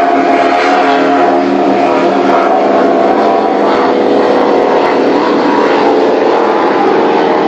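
Racing powerboat engines running hard, a loud continuous engine drone whose pitch sinks a little over the second half.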